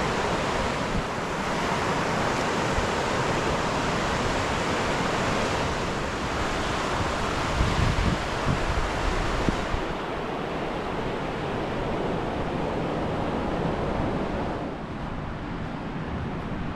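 Surf washing onto a sandy beach with wind buffeting the microphone, the gusts heaviest about halfway through.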